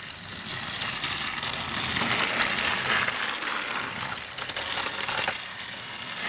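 Clear plastic packaging bag crinkling as it is handled, a crackly rustle with small clicks that stops about five seconds in.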